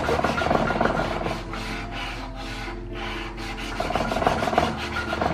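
Hand rasp filing wood in repeated scraping strokes, about one stroke a second, most likely shaping a knife or sword handle.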